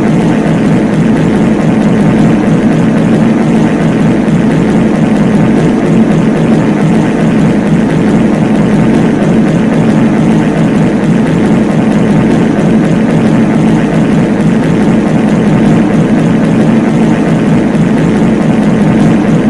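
Many reverberant fart sound effects layered on top of one another at once, merging into a loud, steady, low rumble with no gaps.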